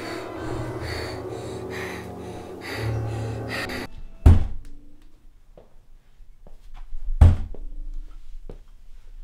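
Suspense music with a pulsing beat that cuts off suddenly, followed by two loud, deep thuds about three seconds apart, with a few faint knocks between them.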